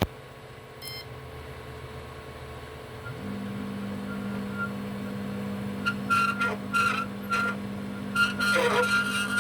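Tronxy XY-2 Pro 3D printer making its abnormal running noise: a short beep about a second in, a steady low hum from about three seconds in, then from about six seconds a series of short, uneven grinding bursts over a high whine as the motors move.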